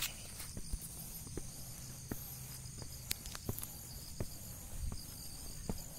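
Footsteps climbing dirt trail steps, a sharp scuff or thud every half second or so, over a steady high chirring of insects in the grass.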